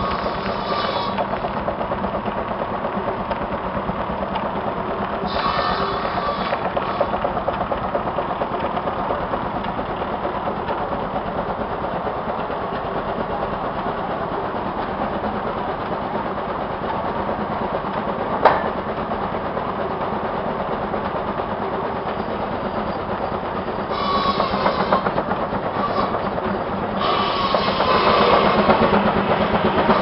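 An old engine running steadily with a fast, even mechanical beat, broken by a few short bursts of hiss and one sharp click about two-thirds of the way through.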